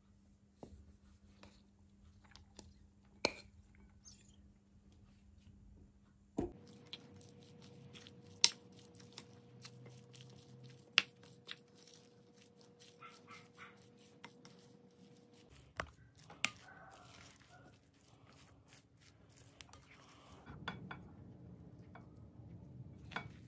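A spoon knocking and clinking against a glass mixing bowl as cooked rice is stirred into a pepper and tuna sauce: scattered sharp clicks, a few of them loud, over a faint steady hum.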